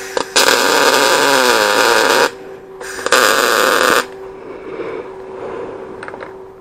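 Electric arc welding in two bursts, about two seconds and then about one second long, each a steady loud crackling hiss that starts and stops abruptly: a bolt being welded onto a stripped, recessed outboard lower-unit drain plug so that it can be turned out.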